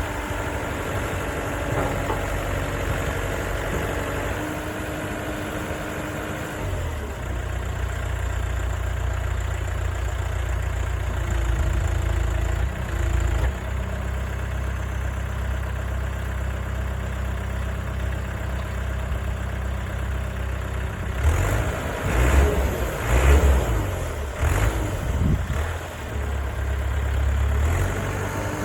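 JCB 3CX backhoe loader's diesel engine running steadily; its note drops and grows heavier about a quarter of the way in. Near the end comes a few seconds of uneven, louder knocks and rushes over the engine.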